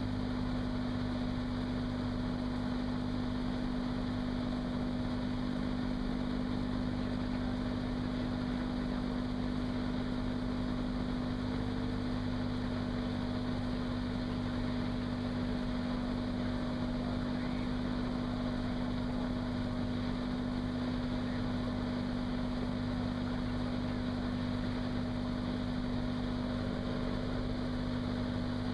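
Cirrus SR22's 310-horsepower six-cylinder engine and propeller running steadily in flight at a constant pitch, heard from inside the cockpit.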